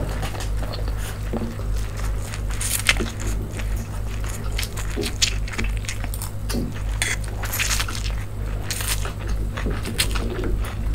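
Close-miked eating: chewing and slurping noodles, with many short wet mouth smacks and clicks at irregular intervals. A steady low hum lies underneath.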